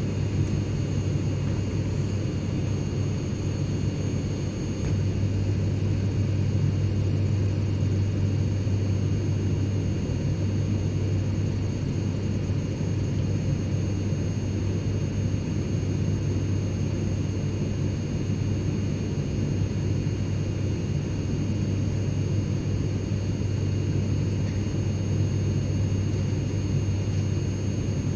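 Steady cabin noise inside a private jet in flight: a constant low rumble with a hiss of air over it and faint, thin high-pitched whines from the engines and air systems.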